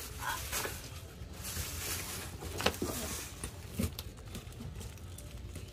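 Handling noise: a plastic bag rustling, then a few light knocks and scrapes as fingers work at the plastic strapping tied round a cardboard box.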